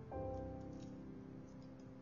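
Slow, soft piano music as a film score: a chord struck just after the start and left to ring and slowly fade.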